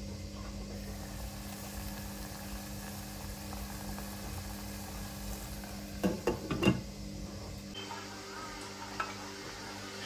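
Kitchen cooking sounds: a steady sizzling hiss over a low hum, with a few sharp clinks of kitchenware about six to seven seconds in.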